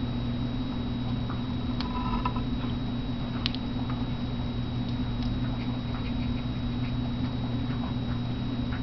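Faint clicks and light taps of a small doll being handled and set down on a wooden tabletop, a few of them about two to three and a half seconds in. Under them runs a steady low hum with a thin high whine.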